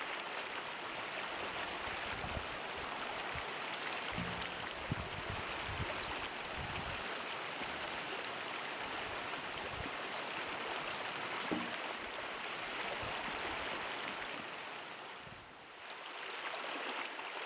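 Stream water running steadily, with a few low thumps between about four and seven seconds in and again near eleven seconds. The rushing dips briefly near the end.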